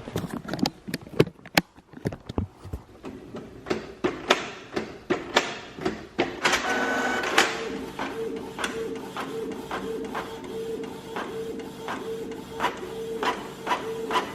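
Home inkjet printer printing pages: a run of clicks and knocks, then about six and a half seconds in a short rushing whir followed by a steady hum with regular ticks.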